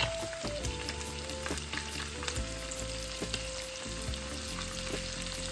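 Rainbow snapper and spinach dumplings frying in hot oil in a pan: a steady sizzle with many small crackles and pops.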